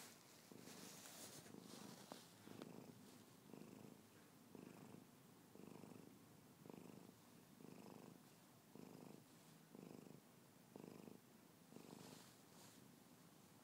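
A sleeping cat snoring faintly in a steady rhythm, about one breath a second.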